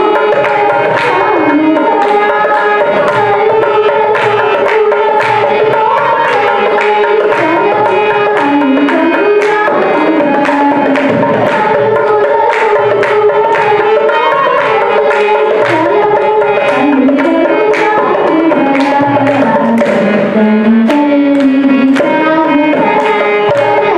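A girl singing an Indian devotional song into a microphone, accompanied by tabla strokes keeping a steady rhythm and a sustained melodic instrument underneath.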